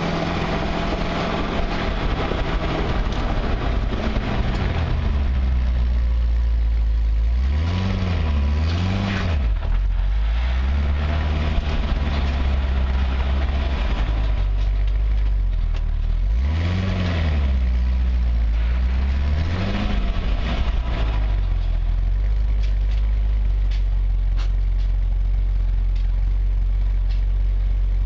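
Factory exhaust of a 2011 Corvette Z06's 7.0-litre V8, heard from between the mufflers: running with road noise for the first few seconds, then idling. The engine is revved in two quick pairs of throttle blips, one about eight seconds in and one about seventeen seconds in, then settles to a steady idle.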